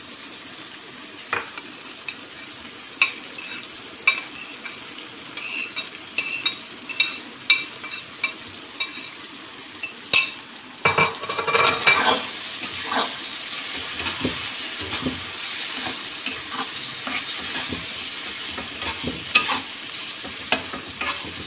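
Masala sizzling in a wok while a metal spatula stirs and scrapes against the pan, with frequent short clinks. About eleven seconds in, the frying and scraping get louder and busier as the boiled brain pieces go in and are mixed and broken up.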